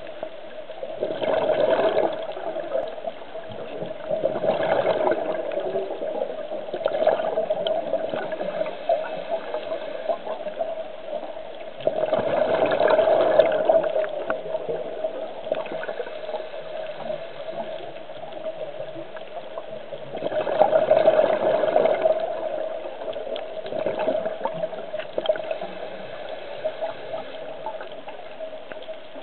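A scuba diver's regulator bubbling underwater as the diver breathes out, in gushes of a second or two every few seconds, the biggest about 13 and 21 seconds in, over a steady low hum.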